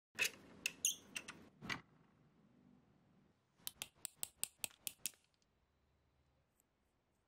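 Flush cutters snipping a small 3D-printed plastic part free: a quick run of about eight sharp snips. Before that come a few sharp clicks and knocks.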